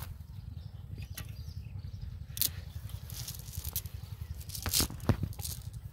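Rustling and crackling of a cast net and grass being handled as fish are picked out, with a few sharper snaps, the loudest about two and a half seconds and five seconds in, over a steady low rumble.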